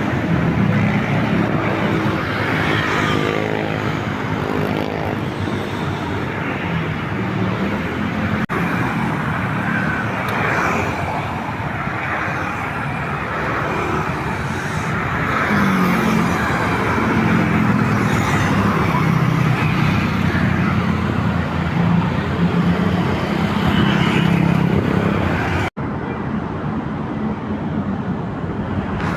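Road traffic with buses and other vehicles passing, their engines running steadily. The sound breaks off and changes abruptly twice, once about a third of the way in and again near the end.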